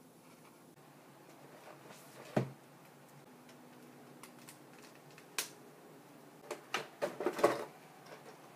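Plastic toy packaging and parts being handled and set down on a wooden tabletop. There is one knock about two seconds in, a click midway, then a quick run of knocks and clatter near the end.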